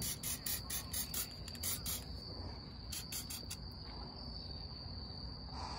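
Crickets trilling steadily at a high pitch, with runs of rapid, higher ticks in the first two seconds and again about three seconds in.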